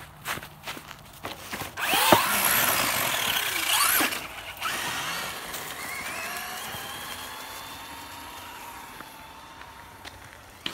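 Electric RC truck's motor revving hard in short bursts with the tyres spinning, then a rising whine as it drives off that slowly fades away. A few crunching steps in snow come before it.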